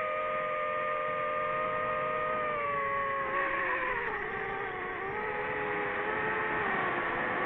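FPV racing drone's motors and propellers whining in a steady multi-tone hum over a rush of air. About 2.5 seconds in the pitch drops and then wavers up and down as the throttle changes.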